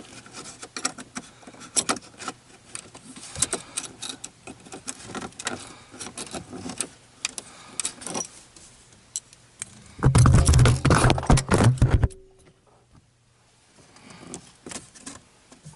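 Metal vent-mount bracket and its hardware clicking and rattling against the plastic dash air vent as it is worked into place, with a louder burst of scraping and rattling lasting about two seconds, some ten seconds in.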